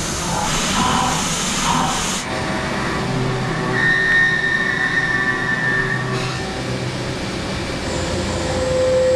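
Heller CP 6000 machining centre milling a metal pump housing: steady cutting noise with spindle and cutter tones that change as the cut goes, a high whine for about two seconds from around four seconds in and a lower steady tone that builds near the end.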